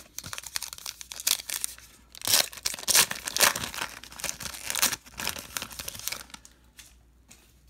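A baseball card pack's wrapper being torn open and crinkled by hand: a run of crackling tears and rustles, loudest in the middle, that dies away over the last second or so.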